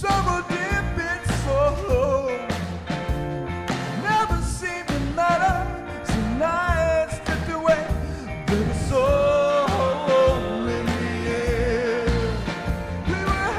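A man sings loudly into a microphone over backing music, his voice wavering through long held notes above a steady, pulsing bass beat.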